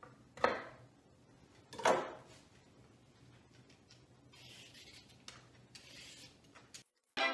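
A chef's knife knocks twice on a wooden cutting board while cutting a carrot, then a hand vegetable peeler scrapes faintly along a carrot in short strokes.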